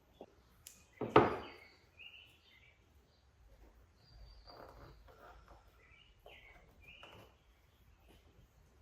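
Birds chirping in the background with short whistled notes, and a single sharp knock about a second in followed by a few faint handling noises.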